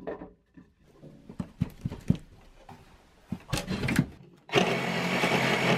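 Scattered knocks and clicks as a sheet-metal electrical panel box is handled and pushed into a hole cut in a plywood wall. About four and a half seconds in, a steady whirring hum starts suddenly.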